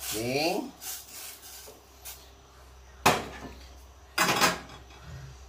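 Metal spoon stirring coconut milk in a stainless steel pot, knocking and scraping against the pot's side, with a sharp clink about three seconds in and a louder scrape a little after four seconds.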